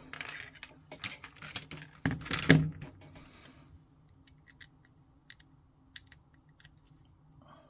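Plastic miniature parts being handled and fitted together. Rapid light clicking and rustling comes first, with a louder knock about two seconds in, then only occasional small clicks.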